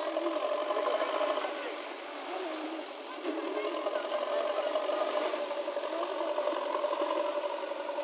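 JCB backhoe loader's diesel engine running steadily as the machine manoeuvres, dipping briefly about two seconds in.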